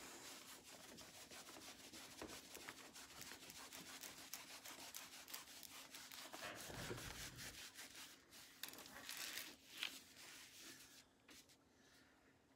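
Faint rubbing and crackling of a large diamond painting canvas and its clear plastic cover film being rolled up by hand: a dense run of small crackles that thins out near the end. A faint steady hum runs underneath.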